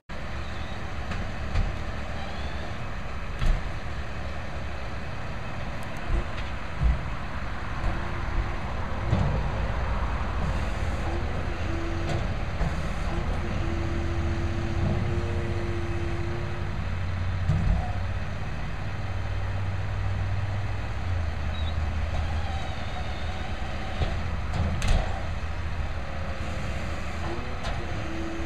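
Diesel engine of a refuse truck collecting recycling, running steadily and building up from about halfway through. Scattered knocks and clanks and a couple of short whines come over it.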